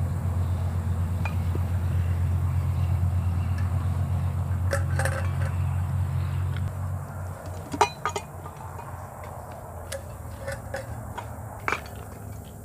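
Metal camping gear clinking and knocking as it is packed into a bag: a scatter of short sharp clinks in the second half, the loudest about eight seconds in. Under it a low steady rumble fades about seven seconds in.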